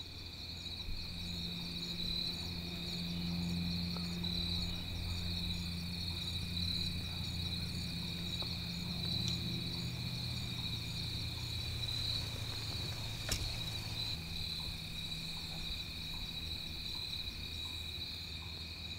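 Insect chorus of crickets trilling steadily, with a low steady rumble underneath and a single small click about two-thirds of the way through.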